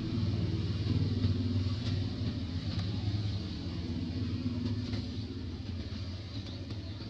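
Low engine rumble of a motor vehicle, strongest about a second in and slowly fading away toward the end.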